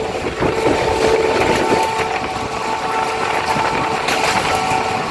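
Passenger train running along the track, heard from an open coach window: a steady rumble and rattle of the wheels on the rails with a faint steady hum.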